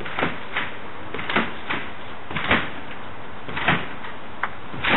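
A trampoline's mat and springs thump each time the jumper lands, about once every 1.2 seconds, with weaker knocks between, over a steady hiss of rain.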